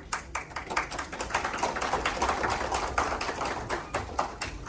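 Audience applauding, a dense patter of hand claps that swells through the middle and thins out near the end.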